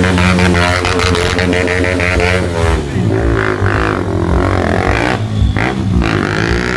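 KTM motorcycle engines running and revving. The pitch is steady at first, then rises and falls repeatedly from about three seconds in.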